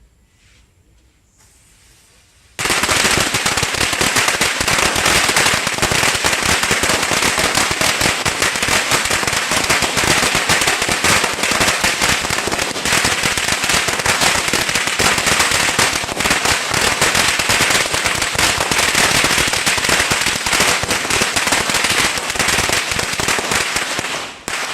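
A string of firecrackers going off in a rapid, continuous crackle of bangs. It starts suddenly about two and a half seconds in and runs for about twenty-two seconds before dying away.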